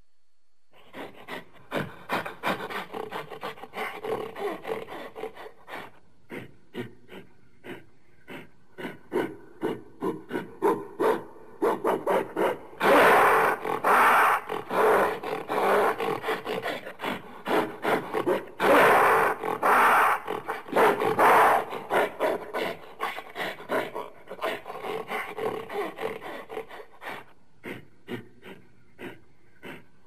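Gorilla calling in a long series of short, rhythmic pulsed calls. The calls build to two loud, dense outbursts around the middle, a few seconds apart, then trail off in fainter pulses near the end.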